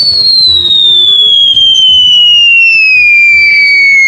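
Falling-whistle sound effect: one loud whistle tone gliding steadily down in pitch.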